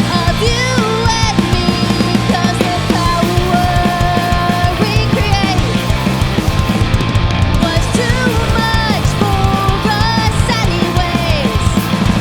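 Punk/indie rock band playing live: electric guitars, bass and drums keep a steady, driving beat, with melody lines bending in pitch over the top.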